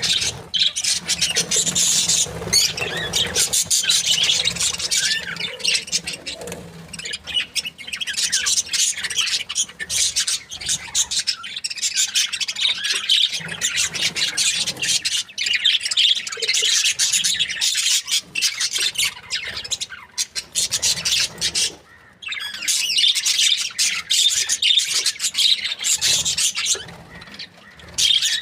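Budgerigars chirping and chattering, a dense run of quick, high squawks and warbles with brief lulls.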